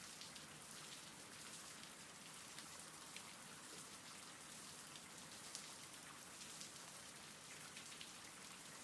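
Faint, steady rain falling, with scattered drop ticks.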